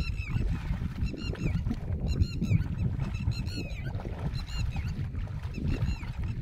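Bare feet wading and kicking through shallow muddy water, sloshing and splashing. High honking bird calls come in short clusters about once a second over it.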